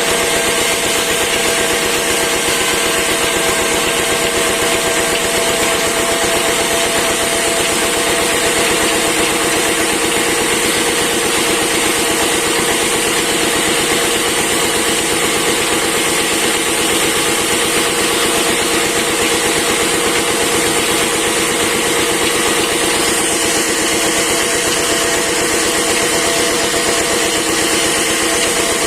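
Engine of a wood-cutting machine running steadily, with a constant hum.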